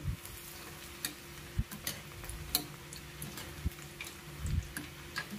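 Mathri deep-frying in oil in a steel kadhai while being stirred with a wire skimmer: scattered irregular clicks and crackles over a faint sizzle, with a low steady hum underneath.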